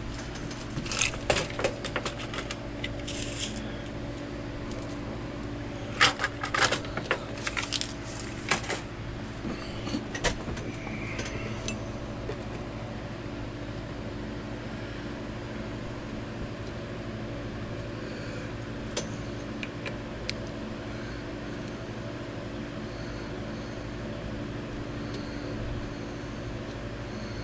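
Clusters of small sharp clicks and taps as tiny pins are worked into the planking of a model boat hull, most of them in the first ten seconds, with a couple more later. A steady mechanical hum runs underneath.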